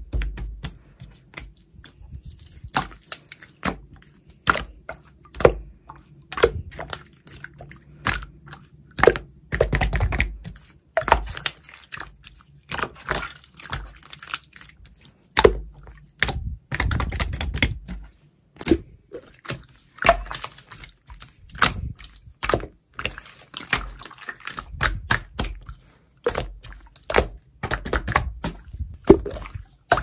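Hands pressing, poking, stretching and folding a soft translucent slime, making irregular sharp sticky clicks and pops, a few a second, with longer squishing stretches now and then.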